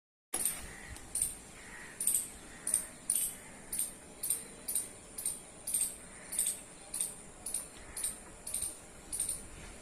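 A parrot chirping: short, high-pitched chirps repeated evenly, about twice a second.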